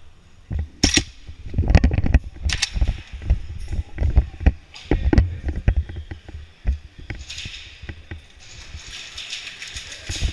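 A run of irregular knocks and heavy thumps, then a steady hissing noise over the last couple of seconds.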